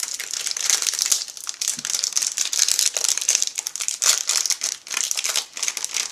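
Plastic candy packaging for marshmallow Peeps bunnies crinkling and crackling continuously as it is handled and opened by hand.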